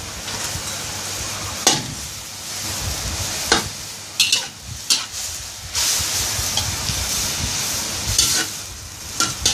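Minced pork sizzling in a steel wok as a metal spatula stirs it, the spatula scraping the pan and knocking against it sharply several times.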